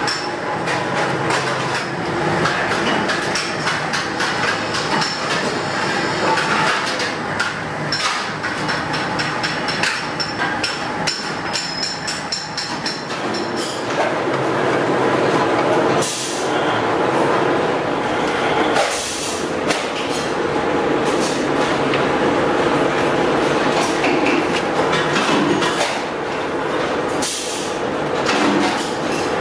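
Sheet-metal roll-forming machines running, their open gears and rollers giving a continuous metallic clatter and rattle as steel strip is rolled into a curved mudguard, with a few brief louder bursts of noise in the second half.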